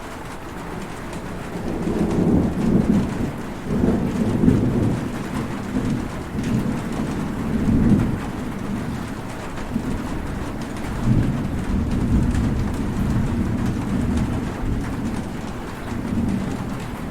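Heavy rain falling steadily, with thunder rumbling low underneath. The rumble swells about two seconds in and rolls on in waves.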